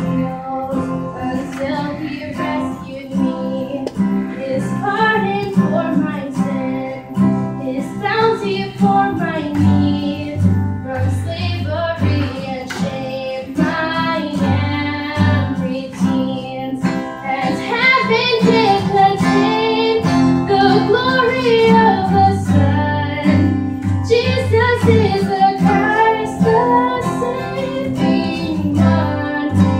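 A young female voice sings live, with an acoustic guitar and a bass playing along. The singing grows stronger and fuller about halfway through.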